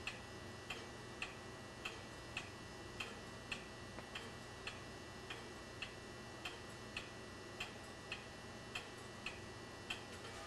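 Mechanical clock ticking quietly and evenly, a little under two ticks a second.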